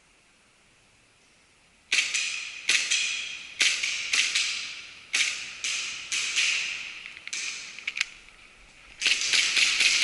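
Gas-blowback airsoft pistol (KJW Beretta) firing: sharp cracks with echoing tails, about nine shots at irregular spacing starting about two seconds in, then a quicker run of shots near the end.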